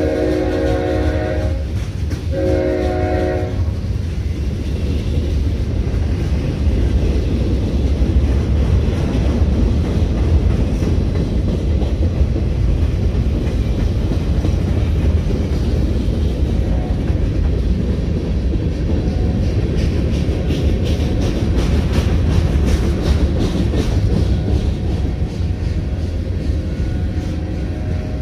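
Freight train horn sounding near the start, a held chord that breaks off about a second and a half in, followed by one short blast. After it, the steady low rumble of freight cars rolling past, with a spell of quick wheel clatter over the rail joints about two-thirds of the way through.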